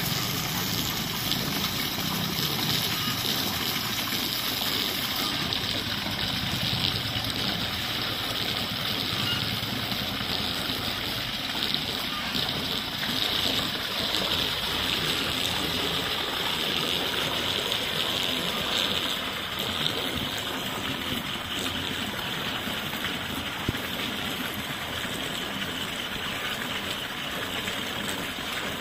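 Water running and gurgling steadily, with small splashes.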